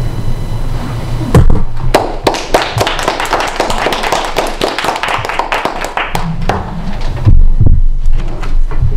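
A small group of people applauding, clapping for about five seconds before it dies away. A few dull thumps follow near the end.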